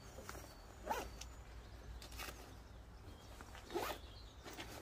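Two short rasps from a textile motorcycle jacket's fastenings and fabric being worked by hand, about a second in and again near the end, with a fainter one in between.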